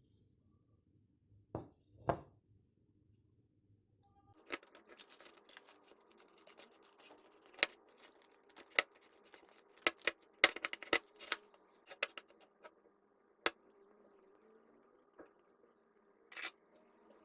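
Kitchen preparation sounds: a couple of knocks, then a busy run of clicks, taps and scrapes, with one last knock near the end.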